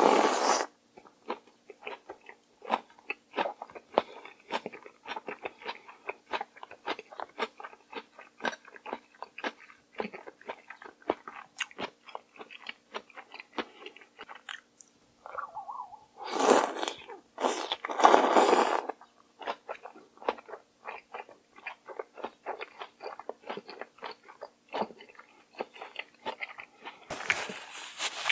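Close-miked chewing and biting of raw seafood from a bowl of mulhoe (cold spicy raw-fish soup), a rapid run of small crisp clicks. Loud wet slurps of food and broth off chopsticks come right at the start and twice about two-thirds of the way through, with another loud burst near the end.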